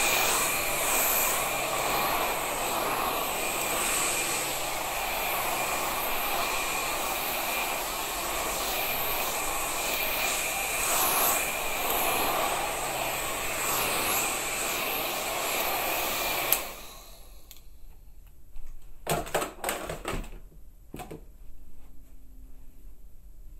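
Steady whirring of a motor-driven blower with a thin high whine, cutting off suddenly about three-quarters of the way through. A few short clicks and knocks follow.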